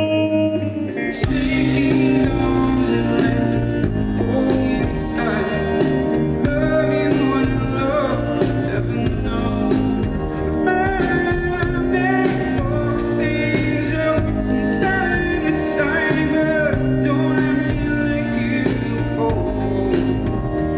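Live band playing a pop song with electric guitar and a trumpet section; the bass and drums come in about a second in and the full band plays on steadily.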